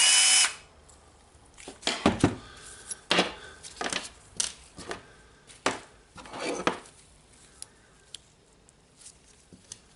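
A small electric screwdriver runs briefly at the start, its whine rising, backing out a screw; then irregular clicks and clattering knocks of small metal and plastic parts and the tool housing being handled.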